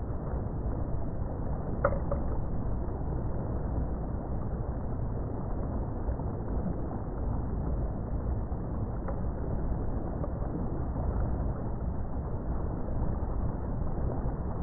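Steady low rush of a boat under way, its wake churning the water, with a short click about two seconds in.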